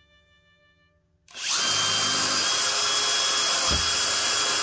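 Electric drill starting up about a second in and running steadily at constant speed as it bores a hole.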